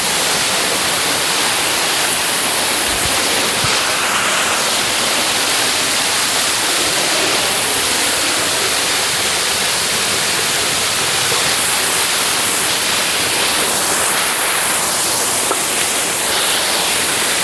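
Waterfall close by: a loud, steady rush of falling water that swells in the first second and then holds even.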